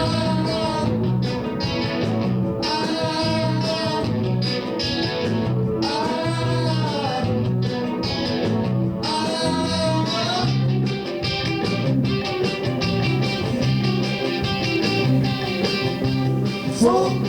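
Rock band playing live: an electric guitar plays lead lines that bend and slide in pitch over a steady bass line.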